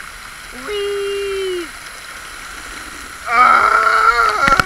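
Steady hiss of a lake fountain's spray raining down on the water around a paddleboard. A man's drawn-out "whee" about a second in, then loud yelling from a little past three seconds.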